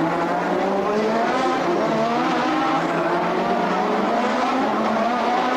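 Formula One car engines at racing speed, their pitch rising and falling with throttle and gearchanges.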